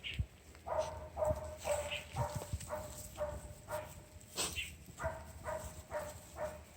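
Beagle puppy sneezing over and over: a quick run of short, squeaky sneezing sounds about two a second, with a short break midway and a few sharper bursts.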